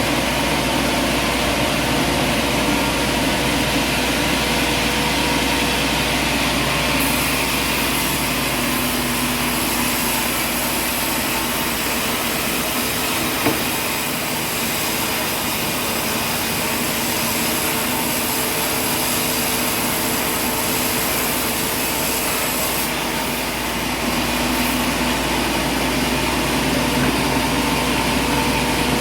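Sawmill machinery running steadily, a mix of engine hum and whirring saw noise. A brighter, hissier layer comes in about a quarter of the way through and drops out again near the end, with a single sharp click about halfway.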